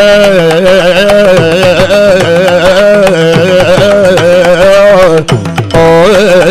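Yakshagana bhagavata's high male voice holding a long, ornamented sung note without words, over a steady drone and drum strokes. The voice breaks off briefly about five seconds in, then comes back.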